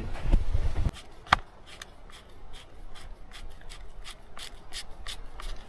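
Parts of a small outboard motor being handled and fitted back together. There is rubbing at first, a sharp click about a second in, then a run of light clicks and taps.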